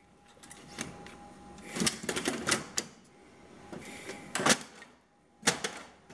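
Plastic clicks and snaps of a toner cartridge being seated in a Kyocera laser printer and its cover being shut: a cluster of clicks about two seconds in, a loud snap about four and a half seconds in, and another pair near the end.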